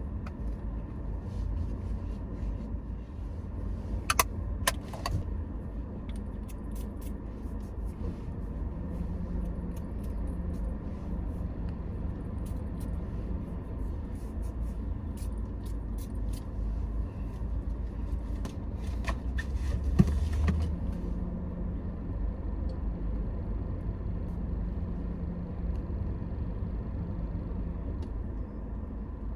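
Steady low rumble of a car on the road. A few sharp clicks come about four to five seconds in, and a louder knock around twenty seconds in.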